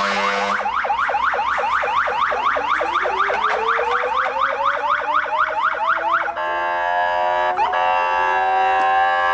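Fire engine sirens in a rapid yelp, about five rising sweeps a second, with a slower rising wail underneath; about six seconds in the sound changes to a long steady horn-like tone, broken briefly near eight seconds.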